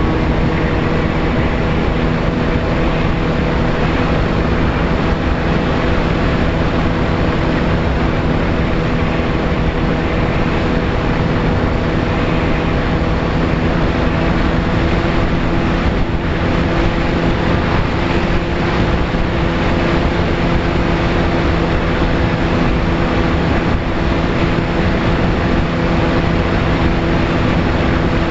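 VAS Chimera FPV plane's motor and propeller running at a steady pitch, heard from the onboard camera under heavy wind rush.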